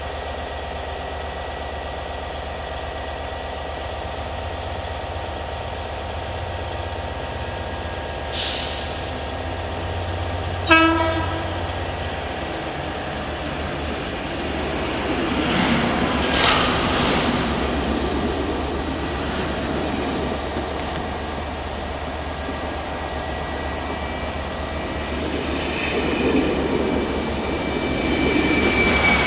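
A diesel locomotive idling steadily. About eleven seconds in, a locomotive horn gives one short, loud blast. Then GBRf Class 73/9 electro-diesel 73965 hauls a Network Rail test train past, the passing locomotive and coaches growing louder as they go by.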